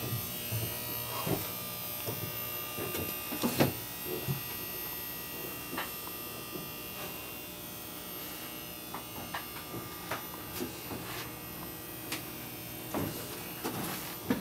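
Steady buzz and hum of running machinery in a boat's engine room, made of several steady tones, with scattered light knocks and clicks.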